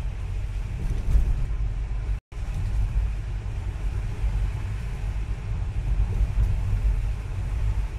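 Car heard from inside the cabin while driving through a narrow rock tunnel: a steady low rumble of engine and tyres. The sound cuts out for a split second about two seconds in.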